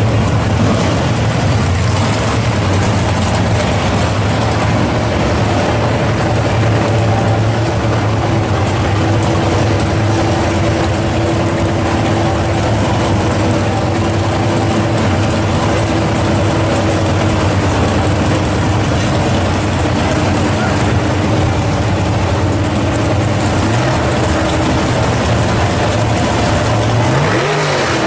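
Drag-racing engines of a 1968 Chevelle and a second car idling loud and steady side by side, then revving up sharply at the very end.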